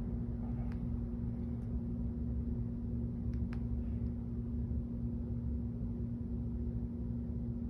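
Steady low mechanical hum, with a few faint ticks about a second in and again around three and a half seconds.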